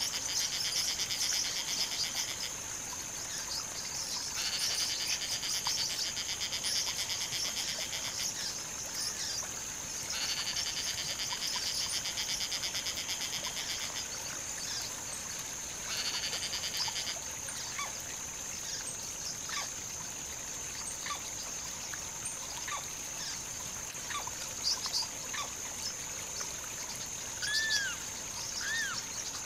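Outdoor wildlife ambience: a steady high buzz, with bursts of fast, evenly pulsing trills every few seconds that stop after about the first two-thirds. Near the end come several short, arched bird chirps.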